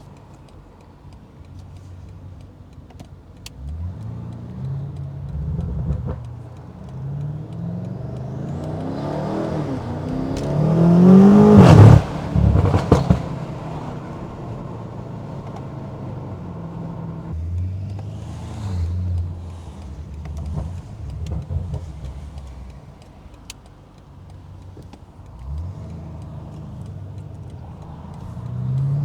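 BMW M8 Competition's tuned twin-turbo V8 pulling hard: the engine note climbs over a few seconds to a loud peak about twelve seconds in and cuts off sharply, followed by a couple of brief loud bursts. It then runs at lower, steadier revs with a shorter rise, and starts climbing again near the end.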